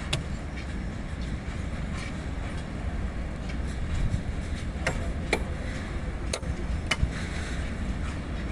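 Loaded railway petroleum tank wagons rolling past: a steady low rumble of wheels on rails, broken by a few sharp clicks as the wheels cross rail joints.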